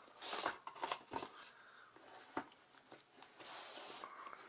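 A retail dashcam box being handled and opened: rubbing and scraping of the box and its packaging, with a few light clicks and a longer scrape near the end.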